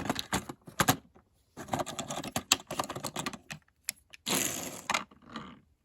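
Plastic toy pieces being handled, clicking and clattering in quick runs of sharp clicks, then a short burst of hiss about four seconds in.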